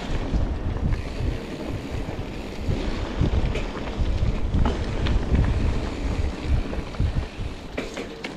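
Wind buffeting the microphone and a low, uneven rumble from mountain bike tyres rolling over a dirt trail, with a few sharp clicks and rattles from the bike.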